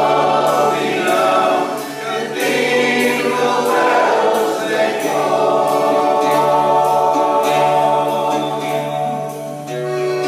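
Live folk song: several voices singing together over a steady low held note from the accompanying instruments.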